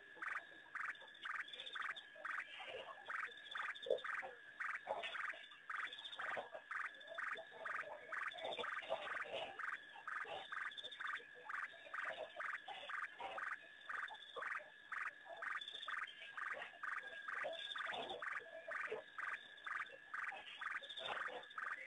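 A chorus of frogs calling, short pulsed calls repeating several times a second and overlapping without a break.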